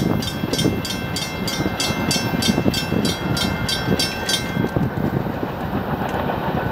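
Railroad grade-crossing warning bell ringing about twice a second while the gates rise, then stopping about four and a half seconds in. A low, uneven rumble carries on underneath.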